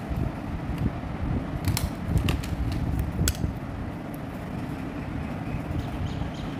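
Wind rumbling on the microphone, with a handful of sharp clicks from lipstick tubes being handled and turned in the fingers, bunched about two to three seconds in.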